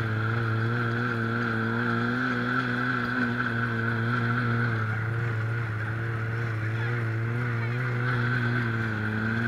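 Snowmobile engine running steadily with no revving, its pitch wavering slightly.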